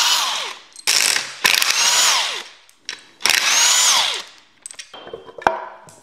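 Cordless drill-driver with a socket backing out the timing cover bolts on an engine. It runs in four short bursts, each ending in a falling whine as the motor winds down. A single sharp knock comes near the end.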